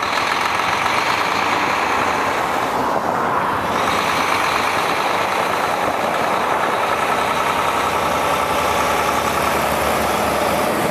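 A heavy diesel vehicle running steadily, an even, unchanging engine noise with no rise or fall in pace.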